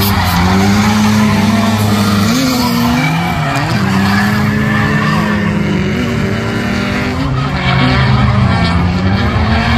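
Drift cars' engines revving up and down as they slide sideways through the turns, with their tyres skidding and squealing.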